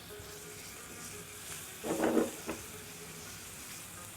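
Chicken cubes frying in garlic and oil in a hot pan: a steady sizzle, with one brief louder sound about two seconds in.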